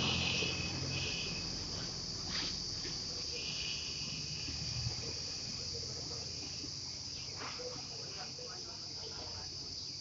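A steady, high-pitched drone of insects in the trees, unbroken throughout.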